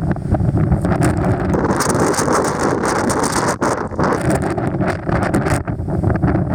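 Strong wind in the wake of a typhoon buffeting the microphone in gusts, loud and without a break.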